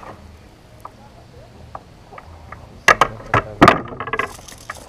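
A landed fish and its lure knocking against a plastic kayak as the fish is brought aboard and handled: a few sharp knocks about three seconds in, then a brief rattle.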